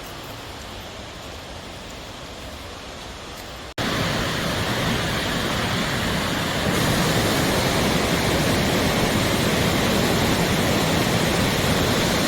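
Waterfall water rushing, a steady hiss that cuts out for an instant about four seconds in and comes back louder, then grows a little louder again a few seconds later.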